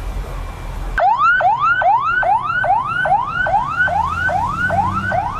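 Ambulance siren on a fast yelp: a rising wail that snaps back and repeats about two and a half times a second. It cuts in about a second in, after a low rumble.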